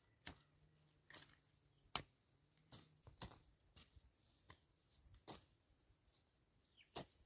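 Short-handled hand hoes chopping into soil: faint, sharp, irregular strikes, roughly one or two a second.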